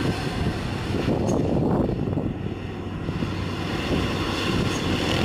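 Diesel engines of heavy trucks, among them a Hino dump truck, droning as they climb a hill, with motorbikes mixed in. A truck close by passes in the first two seconds, and then the engine noise builds again as the dump truck comes nearer.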